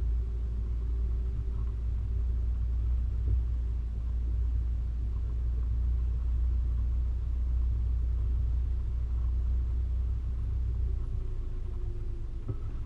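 Four-wheel-drive vehicle driving, a steady low rumble of engine and road noise with a faint drifting hum.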